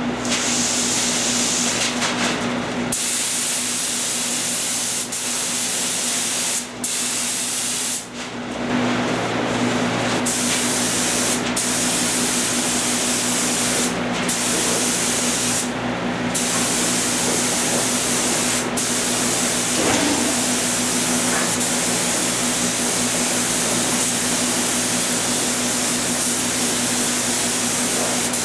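Compressed-air paint spray gun hissing as it sprays sealer onto panels, the trigger let off briefly several times in the first half and then held down. A steady low hum runs underneath.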